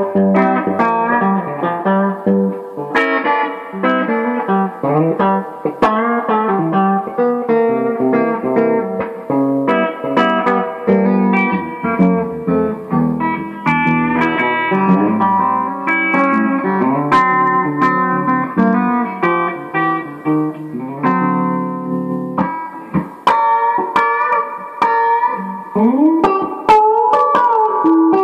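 Electric guitar with Strat-fit Flatpup flat pickups, played as a continuous run of picked single notes and chords, with string bends near the end.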